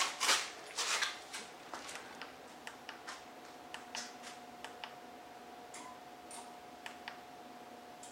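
Hands handling a motorcycle helmet: a run of clicks and taps, loudest in the first second, then fainter scattered ticks, over a faint steady tone.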